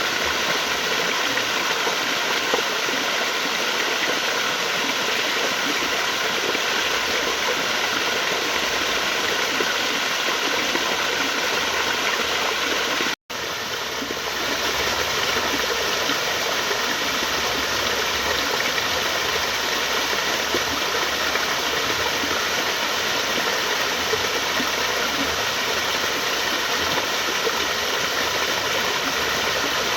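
Steady rushing of flowing water, an even unbroken wash of sound. It drops out to silence for a split second about 13 seconds in, then resumes.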